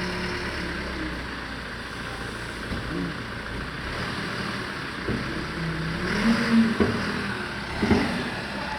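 Wheel loader's diesel engine running with a steady low hum. A few short voice sounds rise over it in the second half.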